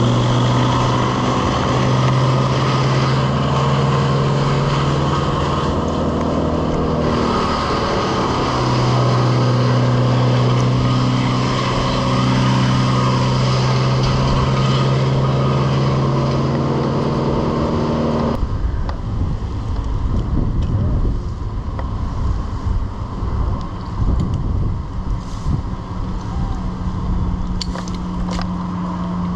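A powered engine running at a steady high speed for about 18 seconds, with a short dip partway, then cutting off abruptly and leaving a lower, rougher, uneven engine sound. A new steady, higher tone starts near the end.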